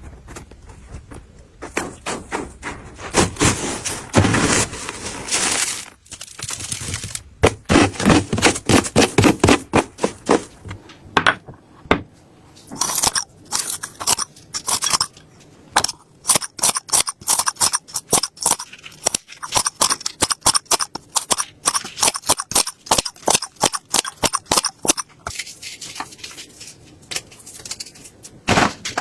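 Quick runs of sharp knocks and clicks with some scraping, from hand food preparation in a kitchen, such as chopping or cutting food for cat food.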